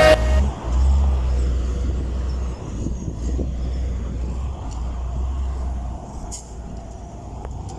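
Heavy vehicle engine rumbling low and steady, gradually getting quieter, with a couple of faint ticks near the end.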